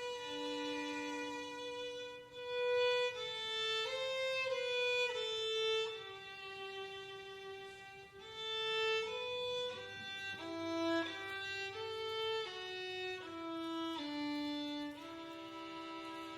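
Violin playing a slow melody of held notes that step from one pitch to the next.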